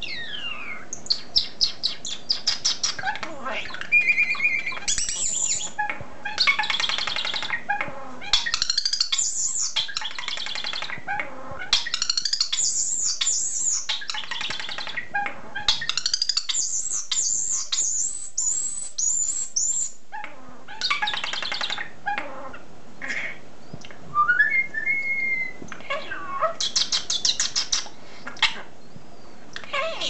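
European starling singing a long rambling song of rapid clicking rattles, squeaky high warbles and a few clear whistles, one held and one rising steeply.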